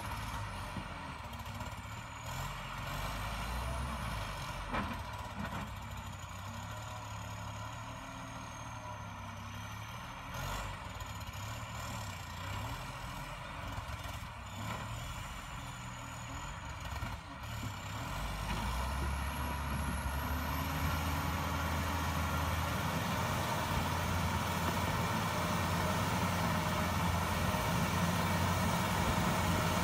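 Heavy diesel engine of a John Deere 670CH motor grader running under load as it grades the ground, with a thin high whine that wanders in pitch. The engine sound grows louder from about two-thirds of the way through as the grader comes closer.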